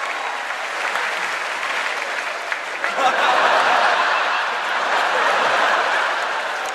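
Large theatre audience applauding, swelling louder about three seconds in, heard from among the seats.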